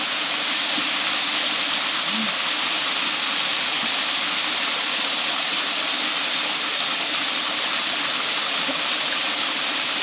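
Steady rush of falling water from a mountain-valley waterfall and stream, an even hiss with no breaks.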